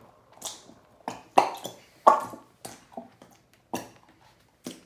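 Small plastic bottles of clear glue being squeezed out into glass bowls: a string of short, sharp squirts and clicks, about eight of them.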